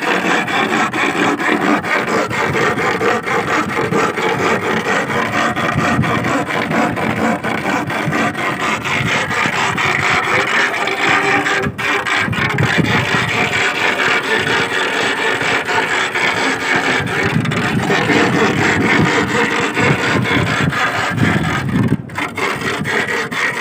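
Iron rod rasped rapidly and without pause, a continuous grating scrape, the noise used to drive sea worms (sasing) up out of their burrows in the sand. It breaks off briefly twice.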